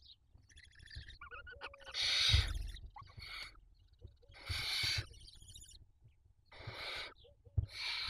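Barn owl chicks giving long, rasping, hissing begging calls, several in a row at irregular intervals, with a few short chirps and soft scuffling thumps in the nest between them.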